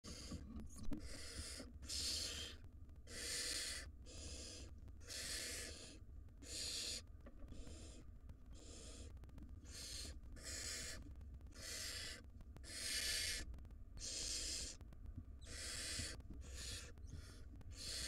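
Barn owl nestlings' food-begging calls: rough, hissing screeches repeated roughly once a second. A sharp click about a second in, and a low steady hum underneath.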